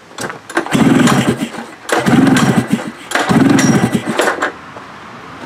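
Ski-Doo snowmobile engine cranked over by hand three times, each pull about a second of rapid chugging compression strokes; it turns over but does not catch.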